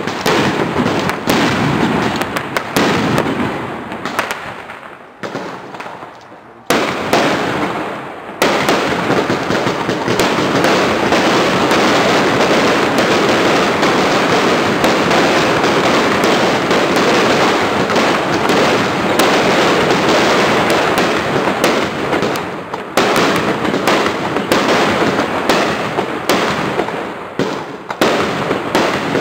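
Category 2 compound firework battery firing: a dense, rapid run of bangs and crackle. It thins to a short lull about five seconds in, then comes back as a nonstop barrage from about eight seconds in, loosening again after about twenty-three seconds.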